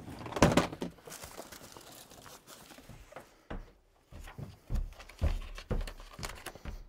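Footsteps of a person climbing indoor stairs: a few irregularly spaced thumps.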